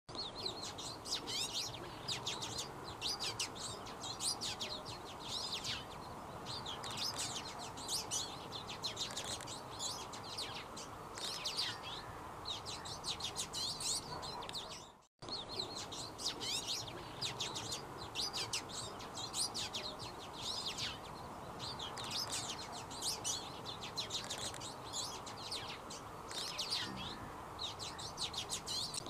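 Twite singing: a fast twittering song of short, high chirps in repeated bursts, over a steady background hiss. The sound drops out briefly about halfway through.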